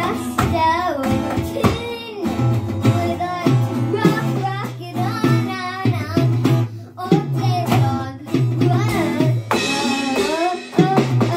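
A child singing a song over strummed acoustic guitar, with an electronic drum kit keeping the beat.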